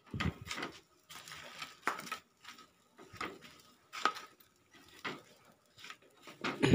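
Hard shellfish shells clicking and knocking against a wire grill rack as they are set down one by one over a wood fire: an irregular series of short knocks, the loudest near the end.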